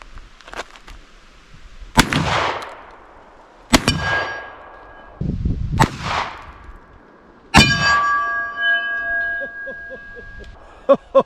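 VR80 semi-automatic 12-gauge shotgun firing four shots a second or two apart. A metallic ringing hangs on after two of them, the last ringing for about three seconds, and a quick run of sharp metallic clacks comes near the end.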